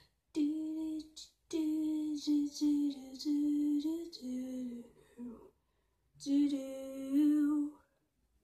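A boy humming a tune in long held notes, in three phrases with short breaks between them, the pitch stepping between a few notes.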